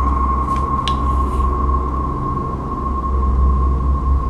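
A horror film's sound-design drone: a steady high ringing tone over a low rumbling hum, with a few faint brief rustles in the first second or so.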